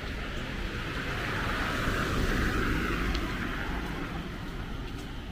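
A vehicle passing on a wet road, its tyre hiss swelling to a peak about two seconds in and then fading, over a steady low traffic rumble.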